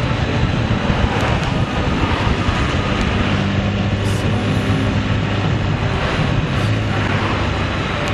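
Vehicle engine running steadily while under way, its pitch drifting slightly up and down, over a continuous rush of road and wind noise.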